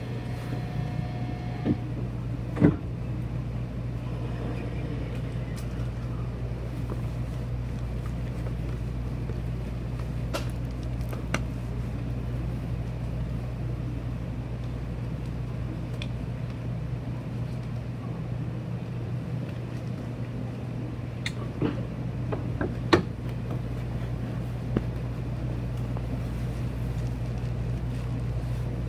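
Steady low hum inside a Shinkansen passenger car as the train pulls slowly out of the station, broken by a few short clicks and knocks, the sharpest about two and a half seconds in.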